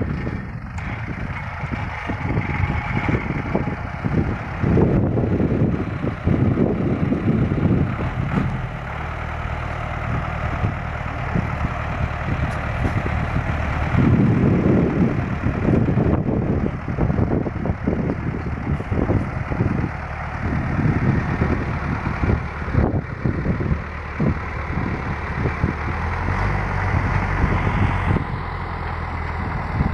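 Farm truck's engine running under load on a muddy road, revving harder in surges every several seconds.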